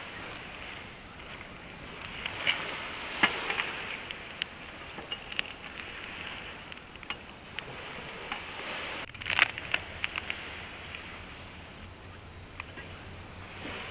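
Small wood campfire crackling, with scattered sharp pops over a steady high hiss. A few louder knocks and clatters come about three seconds in and again a little after nine seconds, as the cooking pot on the fire is handled.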